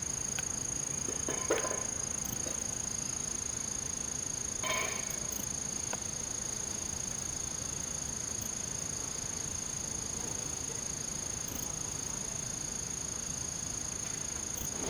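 Cicadas singing: an unbroken high-pitched drone, with a couple of faint short knocks in the first few seconds.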